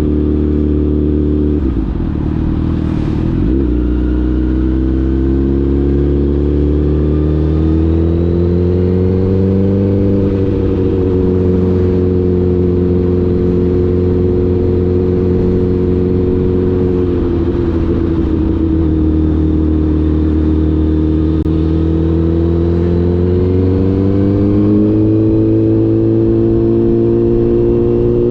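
Honda CBR1000RR inline-four engine running under way, its pitch following the throttle: a brief drop about two seconds in, a climb a few seconds later, a fall about two-thirds of the way through, and a steep rise near the end.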